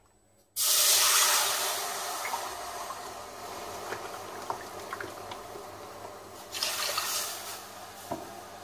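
Milk pouring from a carton into a steel pot of hot flour-and-oil roux, being added for a béchamel sauce. The pour starts suddenly about half a second in and slowly tails off, then a second, shorter pour comes around seven seconds.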